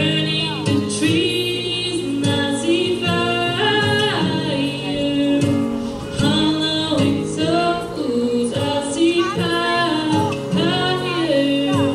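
A woman singing into a microphone over instrumental accompaniment, her voice holding and gliding between notes.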